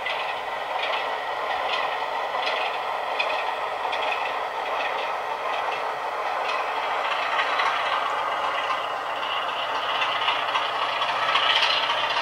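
OO gauge model goods wagons rolling along the track in a steady rattle, with regular clicks as their wheels cross the rail joints; the rattle grows louder near the end.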